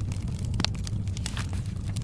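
Fireplace crackling: a steady low rumble of the fire under scattered sharp pops and snaps, one louder pop a little after half a second in.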